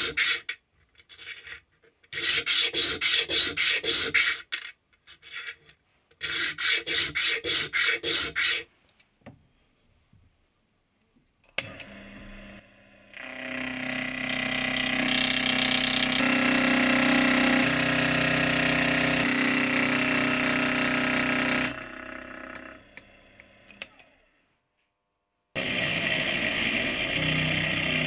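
Small metal washer rubbed by hand on sandpaper, quick back-and-forth scraping strokes about four a second in three short spells. Then a small milling machine runs steadily, louder once its end mill is cutting the edge of the washer held in the vise. It stops, then starts and cuts again near the end.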